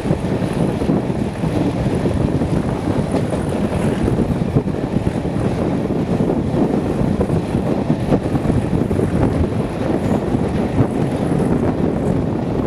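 Wind buffeting a microphone held out of a carriage window of a moving train, over the steady running noise of the train hauled by a Class 37 diesel locomotive.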